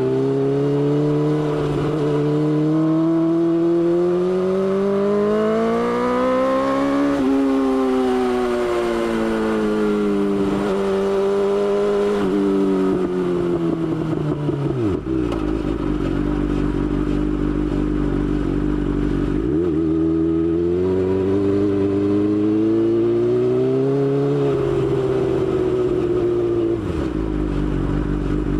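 BMW S1000XR's inline-four engine under way: the revs rise steadily for several seconds, then fall back to a low idle about halfway through. After a brief blip, the revs climb and fall again, settling low near the end.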